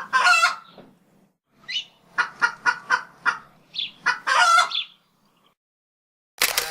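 Red grouse calling: a call at the start, then a quick run of about five short clucking notes, and a longer call around four seconds in.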